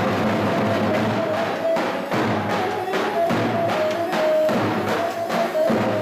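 Davul, the large double-headed Turkish bass drum, beaten in a steady dance rhythm, with a melody instrument playing a held, stepping line above it.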